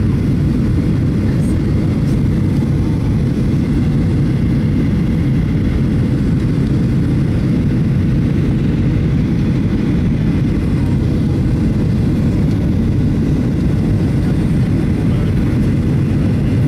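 Steady, loud cabin rumble of a jet airliner in flight on approach, heard from a window seat beside the wing-mounted turbofan engine, with a faint steady whine above the rumble.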